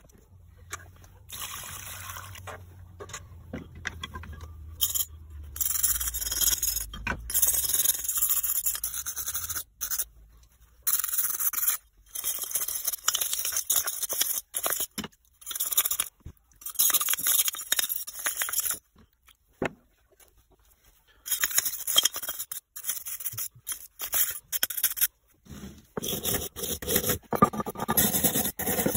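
Stiff brush scrubbing rusty hand-drill parts: rapid scraping strokes in runs of a few seconds, broken by short abrupt stops.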